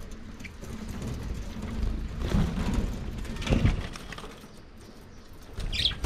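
Budgerigars calling in an aviary cage, with a short high chirp near the end. Two louder low rumbles come about two and three and a half seconds in.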